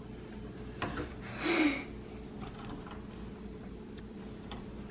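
A few light clicks of small plastic LEGO bricks being handled and pressed together, over a steady low room hum, with a brief soft sound about a second and a half in.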